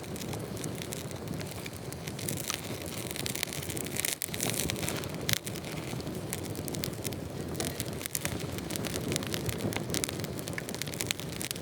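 Wood fire crackling: many small irregular pops over a steady hiss.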